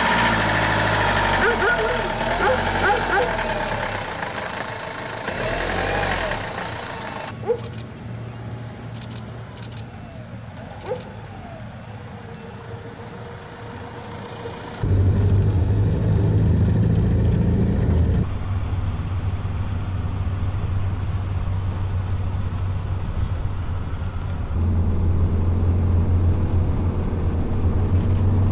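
Renault Master van's engine running as the van drives, heard from inside the cab as a steady low hum that starts about halfway through and grows louder near the end. Before that, the first several seconds hold a louder mix of noise and wavering, whine-like tones.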